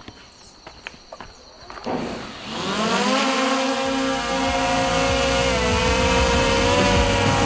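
Small quadcopter drone's propellers spinning up about two seconds in, a buzzing whine rising in pitch, then holding steady as it lifts off and hovers close by.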